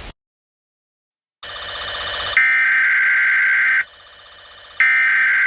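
TV audio cuts off to dead silence, then an Emergency Alert System broadcast begins: a short rising burst of static hiss, then two loud screeching digital data bursts of about a second and a half each, a second apart. These are the SAME header tones that start an emergency alert.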